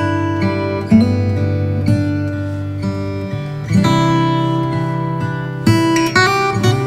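Background music on acoustic guitar, plucked and strummed, with a new chord every second or two.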